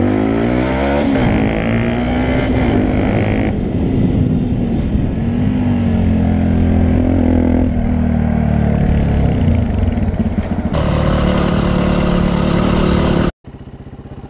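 Dirt bike engine running under way, its pitch rising and falling as the rider accelerates and shifts. A little after thirteen seconds it cuts off abruptly, and a different motorcycle engine runs steadily at a lower level.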